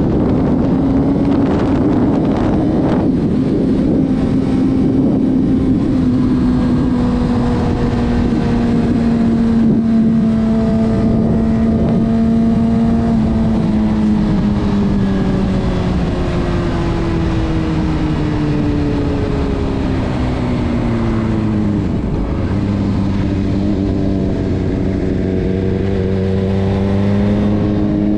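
Honda CBR600RR's inline-four engine running under way. The revs hold fairly steady, then slowly fall through the middle as the bike eases off, and climb again near the end.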